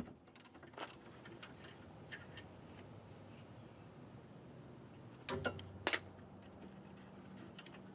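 Faint clicking of a ratchet wrench loosening the 14 mm caliper bracket bolts, then two louder metallic knocks a little past five and six seconds in.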